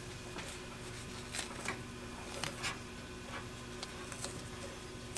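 Faint hand-work sounds at a truck's wheel well: a handful of soft clicks and rustles from a hand tool and fittings being handled, over a steady low hum.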